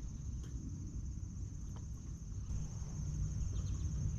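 Insects trilling steadily in a high, even tone over a low rumble, with a few faint ticks.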